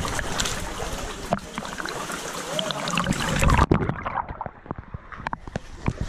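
Sea water lapping and splashing close against a camera held at the waterline. About three and a half seconds in, the camera dips under the surface: the sound turns muffled and dull, with small bubbling clicks, until it comes back up near the end.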